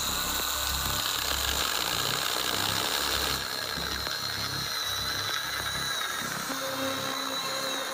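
ValueMax 12-volt battery mini chainsaw running steadily under load as its chain cuts through a pallet board, with a high electric-motor whine that dips slightly in pitch. The cut is going through easily, "like butter". The sound gets a little quieter about three and a half seconds in.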